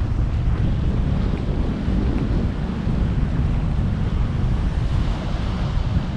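Ocean waves surging on the shore, with heavy wind buffeting the microphone and making a steady low rumble.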